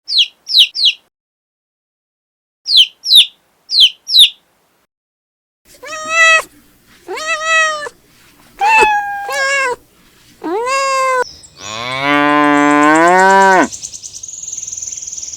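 Short high chirps in three quick groups, then a cat meowing about five times, then a cow giving one long moo that rises in pitch, followed by a high hiss.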